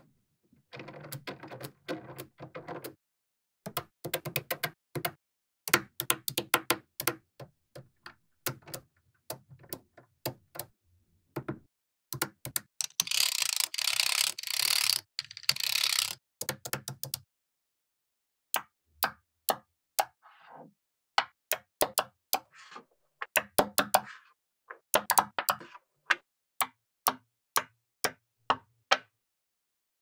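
Small magnetic balls clicking sharply as they snap onto one another, one by one, with stretches of rattling as clusters of balls are shuffled together. The loudest part is a dense rattle of about three seconds near the middle.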